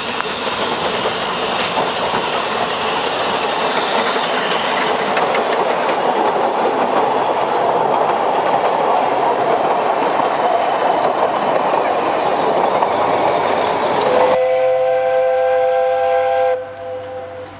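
Narrow gauge steam train passing close by, its carriage wheels clattering over the rail joints in a steady rush that slowly builds. About three-quarters of the way through, the sound switches abruptly to a steam locomotive's whistle giving one chime-like blast of several tones for about two seconds, then falls away.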